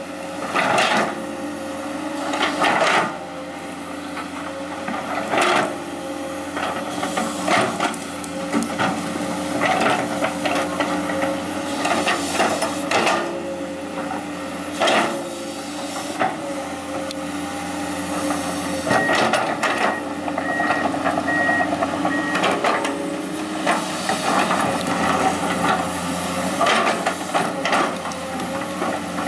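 Komatsu PC200 hydraulic excavator at work: its diesel engine runs steadily under hydraulic load while the bucket digs and scrapes through soil, rock and rubbish, giving repeated irregular knocks and clatter. A short run of beeps sounds about two-thirds of the way through.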